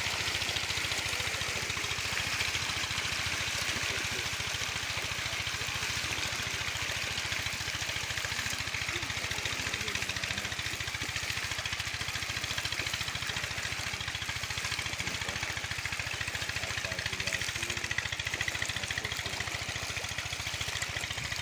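A motor running steadily, with an even low hum and a constant hiss over it.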